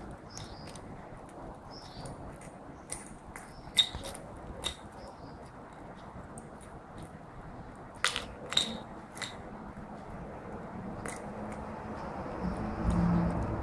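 Small metal drink can clicking and crackling now and then as a schnauzer puppy chews and paws at it, with a handful of sharp clicks over a steady hiss. A short low hum rises near the end.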